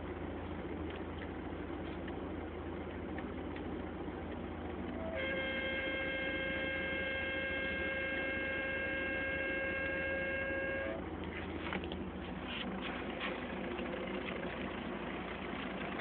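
VAZ-21074 running with a steady low hum and engine noise. About five seconds in, a steady high tone joins for some six seconds, and after it comes a scatter of short knocks and rattles, the kind of extraneous noise from the trunk that is being tracked down.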